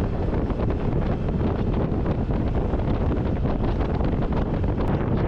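Steady wind rush buffeting the microphone of a motor scooter rider on the move.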